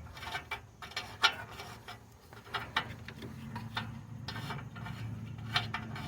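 Irregular metallic clicks and rubbing, a few a second, from a ratcheting wrench and oxygen-sensor socket unscrewing a Toyota's rear oxygen sensor after it has been broken loose.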